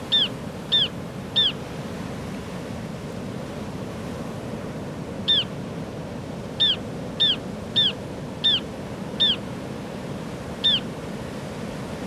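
Ruddy turnstones giving short, high single calls: three in quick succession at the start, one a few seconds later, a run of six evenly spaced past the middle, and a last one near the end. Steady wash of surf on the rocks underneath.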